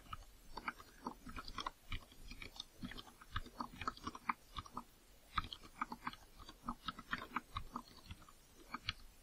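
Computer keyboard being typed on: faint, quick, irregular key clicks, several a second.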